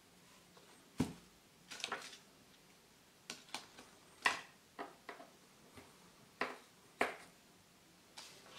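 Small plastic toy pieces clicking and tapping as they are handled and fitted together, about a dozen short, sharp clicks at irregular intervals.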